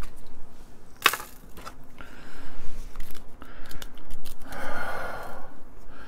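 Hakko FR-300 desoldering gun's clogged solder-collection chamber being opened and cleaned out: scattered small clicks and scrapes of its parts, the sharpest click about a second in, and a short rasping scrape later on.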